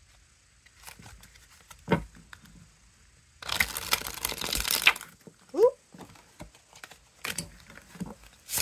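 A flexible tarot deck riffle-shuffled by hand: a rapid burr of cards flicking together for about a second and a half near the middle, with scattered taps and clicks of the cards being squared and handled before and after.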